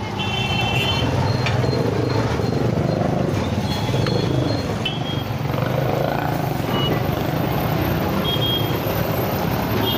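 Moong dal pakoda batter deep-frying in a kadhai of hot oil, the oil sizzling and bubbling, over a steady low rumble. A few short high-pitched beeps come and go.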